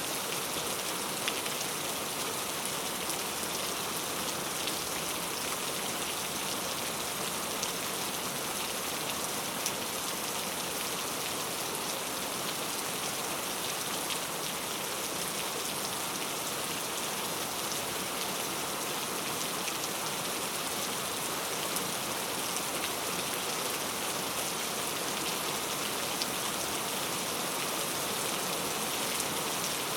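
Heavy rain falling steadily, a dense even hiss with fine drop patter and the odd louder drop.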